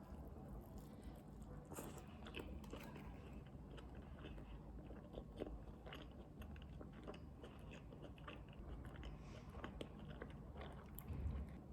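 A person biting and chewing food close to the microphone, with irregular quiet crunches.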